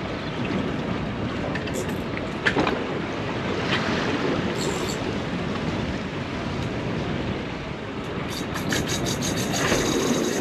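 Steady rush of wind and water around a small open boat, with a few scattered clicks. Near the end comes a quick, even run of high ticks, about six a second.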